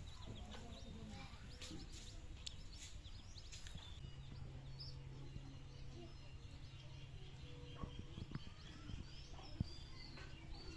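Small birds chirping on and off, with a faint steady low hum starting about four seconds in and a single sharp knock near the end.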